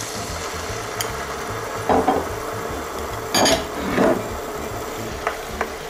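Minced beef and canned tomatoes frying in a pan with a soft steady sizzle, broken by a few knocks and scrapes from a wooden spatula and a bowl; the loudest knock comes about three and a half seconds in.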